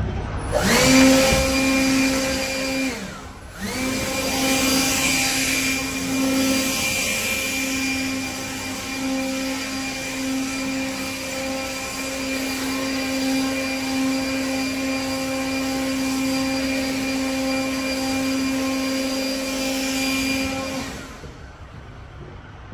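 Small electric motor spinning up with a rising whine, cutting out about three seconds in, then spinning up again and running at a steady high hum until it stops about two seconds before the end.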